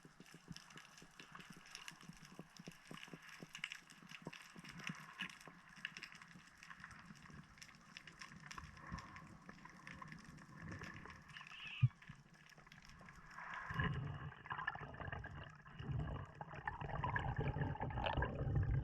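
Underwater sound heard through a diving camera's housing: a steady fine crackle of clicks, with one sharp knock about twelve seconds in. Then come a few seconds of louder bubbling and water noise.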